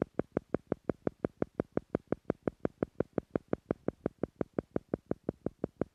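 Theta-frequency pulse sound used to slow brainwaves in meditation: short, soft, even pulses repeating steadily at about five beats a second.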